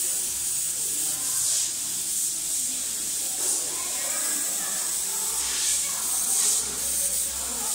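Steady high-pitched hiss that swells and eases every second or so, with faint indistinct voices underneath.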